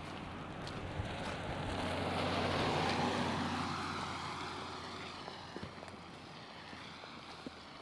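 A vehicle driving past on the street: its tyre and engine noise swells to a peak about three seconds in, then fades away.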